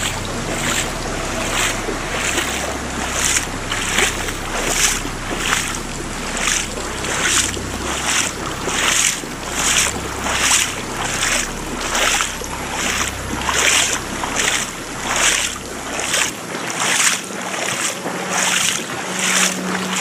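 Footsteps wading through shallow floodwater, a splash with each step at a steady walking pace of nearly two steps a second. Under the splashes is a low wind rumble on the microphone that stops near the end.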